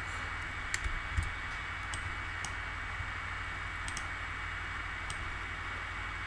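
A handful of sharp computer mouse clicks and a keyboard key press, spread out, over steady microphone hiss and a low electrical hum.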